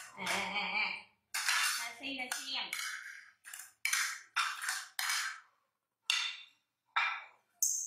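Plates scraping and clattering on a tiled floor as they are slid into place one after another, in a run of short separate bursts.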